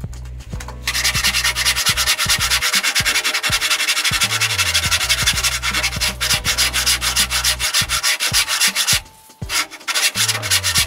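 Hand saw cutting a wooden shelf board with quick, steady rasping strokes. The sawing stops for about a second around nine seconds in, then starts again.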